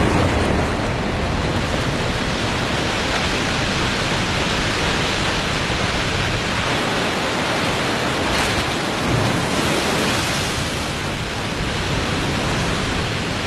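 A waterfall in spring ice breakup, meltwater, mud and broken ice pouring over a 35-metre drop, making a steady, loud rushing noise.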